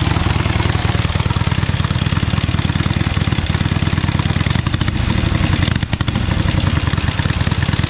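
Vintage Indian V-twin motorcycle engine running at idle with a rapid, even beat of exhaust pulses, dipping briefly about six seconds in.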